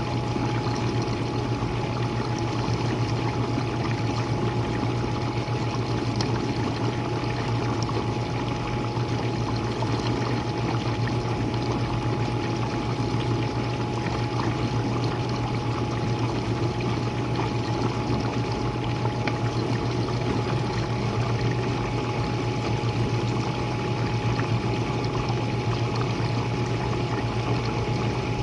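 Jenn-Air dishwasher running, heard from the bottom of the machine: a steady low pump-motor hum with a faint high tone over the constant rush of water spraying and sloshing inside.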